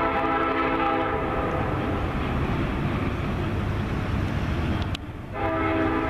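Canadian National locomotive air horn sounding several notes at once, cutting off about a second in. The train's steady rumble carries on, and the horn sounds again near the end.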